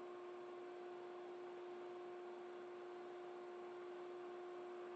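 Wood lathe's electric motor running, heard as a faint steady hum with one higher overtone over a light hiss.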